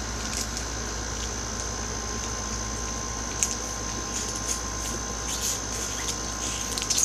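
Room tone: steady background hiss with a low electrical hum and a faint high steady whine, broken by a few soft clicks.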